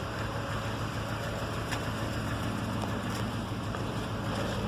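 Chevrolet Zafira 2.0 8-valve engine running steadily without revving, a continuous even drone with a few faint ticks. It is the engine the owner is troubleshooting for a strange noise, hesitation and loss of power under acceleration.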